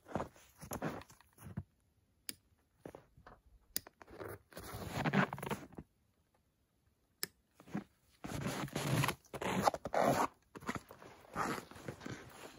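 Rustling and scraping of a string of Christmas lights being handled and fastened along the edge of a snow-covered canvas wall tent, in irregular bursts with a second of silence just past halfway.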